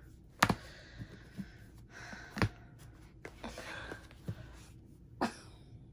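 Hardcover books being gathered and lifted as a stack: three sharp knocks as the books bump together, the loudest about halfway through, with soft rustling of covers and paper between them.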